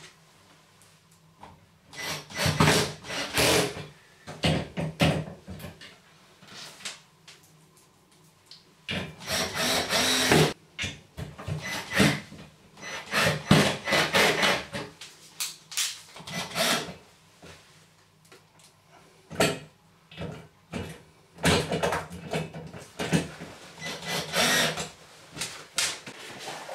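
Cordless drill on a low torque setting driving screws through a metal leg bar into the underside of a bath, in short bursts of one to two seconds, with a few short knocks between them.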